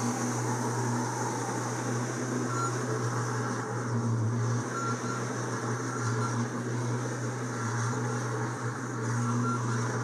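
Diesel engine of a tracked skid steer running steadily under load as it lifts hay bales off a flatbed trailer and drives away with them, a constant low hum.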